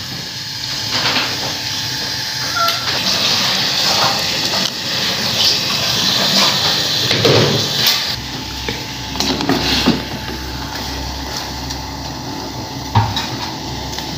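Instant noodles boiling in water in an aluminium pot on a gas stove: a steady hissing noise with a few light knocks. The background changes about eight seconds in, where a low hum comes in.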